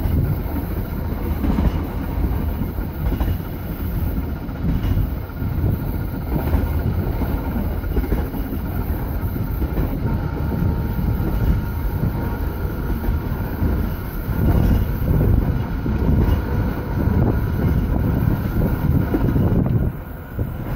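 Electric tram running along its track, heard from its open upper deck: a steady low rumble of wheels on rail with a faint steady whine above it.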